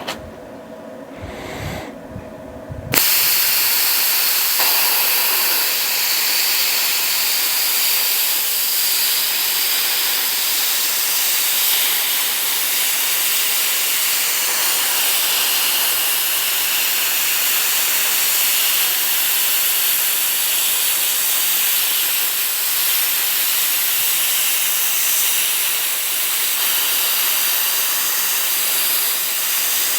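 A few knocks, then about three seconds in a plasma cutter fires and runs with a steady, loud hiss as it cuts a round blank out of 6 mm steel plate.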